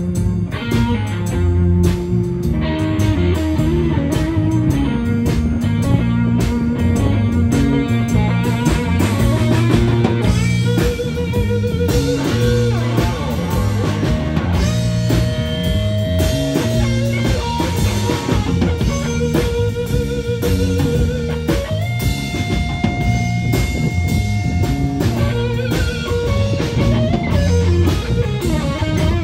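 Live blues band: an electric guitar solo of bent, held notes with vibrato over electric bass and a drum kit, with no singing.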